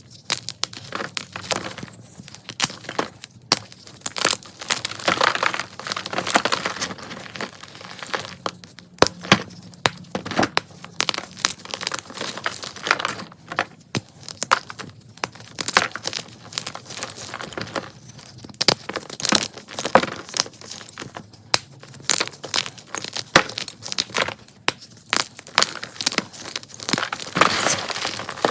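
Crunchy Ader gym chalk being crushed: a dense, irregular run of crunches and crackles with short lulls.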